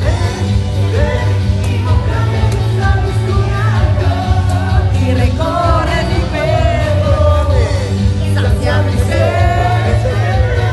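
Karaoke: women singing into microphones over a loud backing track with a steady, heavy bass.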